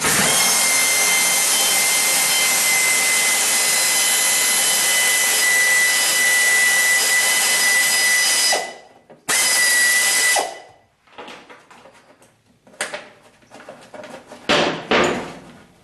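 Air ratchet spinning a half-inch bolt out of the vapor canister mount, a steady hiss with a whine, running for about eight and a half seconds, pausing, then running again for about a second. A few scattered knocks follow, the loudest near the end.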